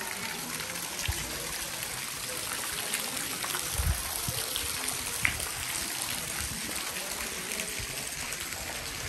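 Small fountain jet splashing steadily into a stone grotto pond, an even trickling hiss of water. A few dull low thumps stand out, the loudest about four seconds in, with a sharp click a little after five seconds.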